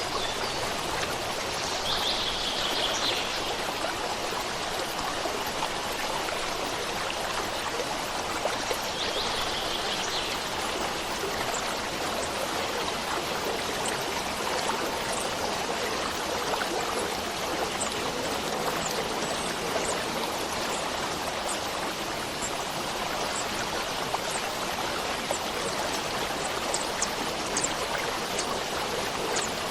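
Stream water running steadily. A few short bird calls come through about two seconds in and again about nine seconds in.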